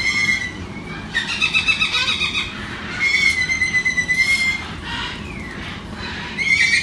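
Umbrella cockatoo making a series of loud, high-pitched squealing calls: about four calls, one wavering and fluttering, another held steady for about a second and a half.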